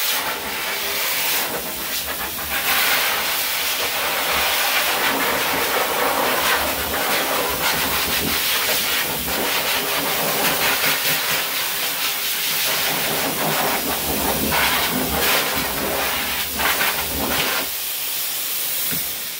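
Pet grooming blow dryer running, a loud steady rush of air whose level wavers as the nozzle is moved over the dog's wet coat.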